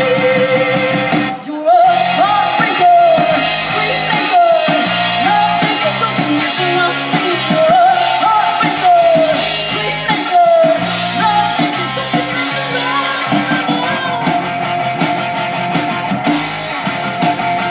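Rock song with a voice singing a melody over guitar-backed band accompaniment.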